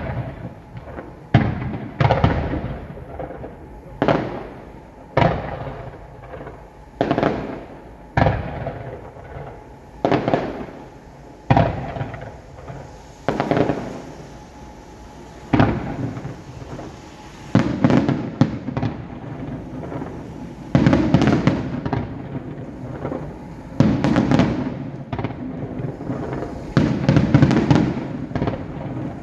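Fireworks going off: a sharp bang about every second or so, each trailing off, then from about halfway through, longer stretches of dense crackling bursts.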